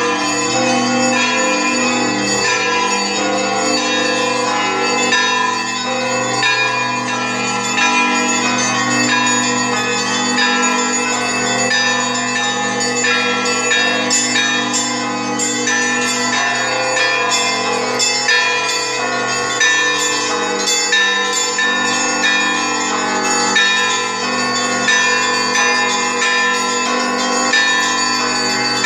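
Russian Orthodox church bells ringing together: many smaller bells struck in quick, overlapping succession over the steady deep tone of a large bell.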